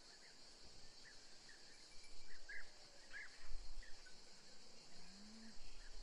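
Faint outdoor ambience: scattered short bird chirps over a steady high hiss of insects.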